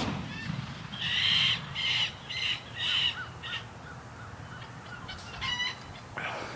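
A rifle shot's echo dies away, then birds call: a run of about five short, harsh calls roughly half a second apart, and a couple more calls a few seconds later.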